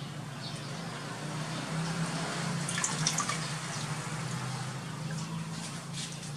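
Water splashing and dripping in a plastic tub as a young monkey dunks its head and moves about in it. The splashes cluster about three seconds in and again near the end, over a steady low hum.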